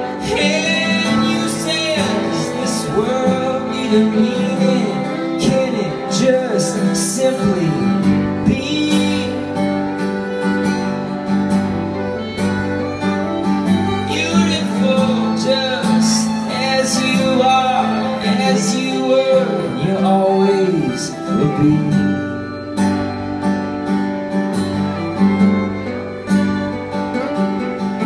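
Live acoustic string music: a violin plays a sliding melody over two acoustic guitars, continuous and steady.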